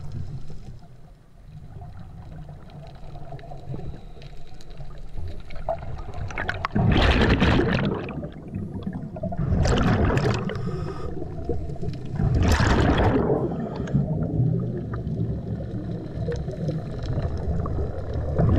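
A diver's exhaled air bubbling out of the breathing regulator, heard underwater: three loud gushes of bubbles a few seconds apart over a low steady rumble.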